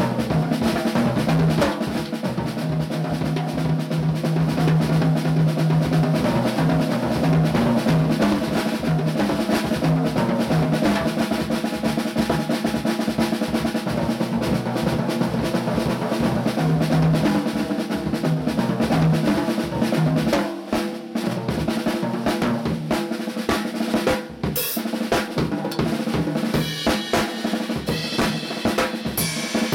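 Drum kit played with sticks in a fast, busy solo: dense snare strokes and rolls with toms and bass drum, featuring the Mapex Black Panther Sledgehammer hammered-brass snare. The pattern thins into sharper, more spaced hits about two-thirds of the way through, and cymbals come in over the last few seconds.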